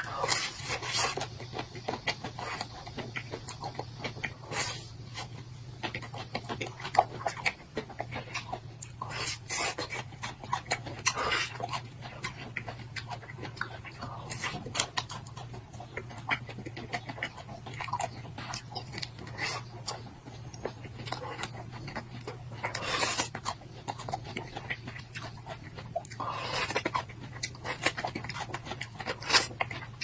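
Close-up eating sounds of ice-cream bars: crunchy bites into a chocolate-and-nut coating, then wet chewing and slurping of the cold ice cream, coming irregularly every few seconds. A steady low hum runs underneath.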